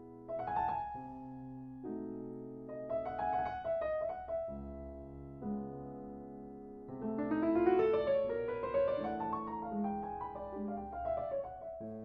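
Background piano music: held chords under a slow melody, turning into a quicker run of notes about seven seconds in.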